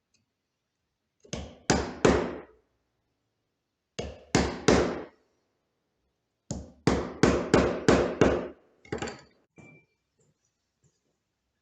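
Hammer blows on wood: hard, sharp knocks in quick groups, three, then three more, then a run of about six, with a couple of lighter taps near the end.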